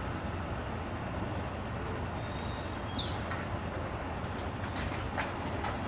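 Rear-loader garbage compactor truck's diesel engine idling with a steady low rumble. Short falling whistles repeat through the first half, and a few sharp clicks come near the end.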